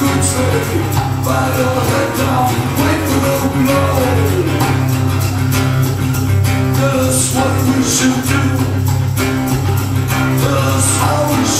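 Live acoustic band playing a heavy, slow song: two acoustic guitars strumming with a singer's vocals over a full, steady low end.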